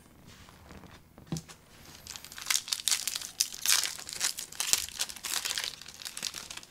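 A sealed trading card pack's wrapper being torn open and crinkled by hand, a dense crackling running for about four seconds after a light click.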